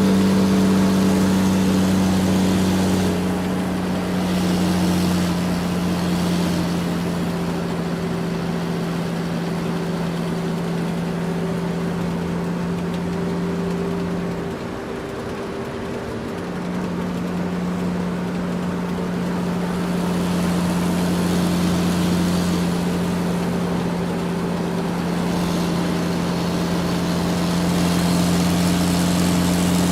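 Heavy diesel engine of an earthmoving machine running steadily with a deep, even hum. It dips briefly about halfway through, then picks up again.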